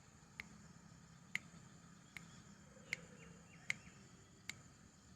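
Faint, sharp ticks, about one every 0.8 seconds, over a steady faint high-pitched whine.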